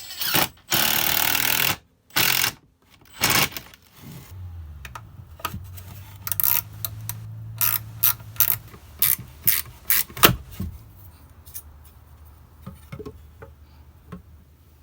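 Woodworking sounds: a power tool runs in three short bursts, the first about a second long. A low motor hum and a run of sharp clicks and knocks from wooden parts being handled follow, thinning out near the end.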